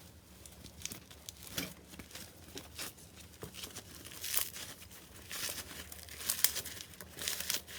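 Slime being squeezed and pulled by hand, making irregular crinkly crackles and clicks, with louder clusters about halfway through and near the end.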